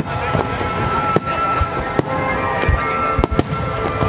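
Aerial fireworks shells bursting overhead: a sharp bang about every second, some close together, over a continuous background haze.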